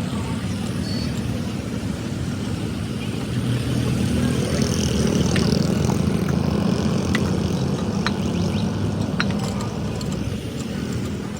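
Tractor engine running steadily, getting somewhat louder a few seconds in and easing off near the end, with a few light clicks and rattles.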